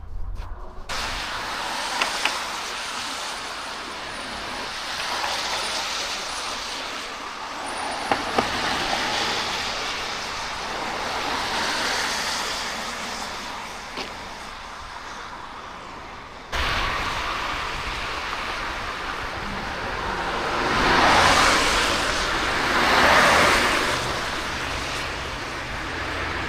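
City street traffic: cars passing one after another, their tyre and engine noise swelling and fading every few seconds, over a steady low rumble of traffic that becomes noticeably heavier about two-thirds of the way through.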